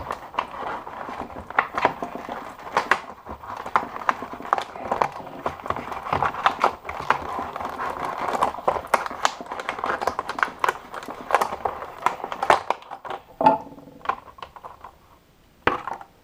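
Rustling, crinkling and frequent sharp clicks of a multitool's packaging being handled and opened, going quiet briefly near the end.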